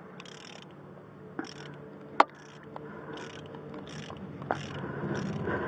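A ratchet clicking in repeated short strokes as it winds a caliper piston tool clockwise, screwing the rear brake caliper piston back into its bore. A sharp metal click stands out about two seconds in.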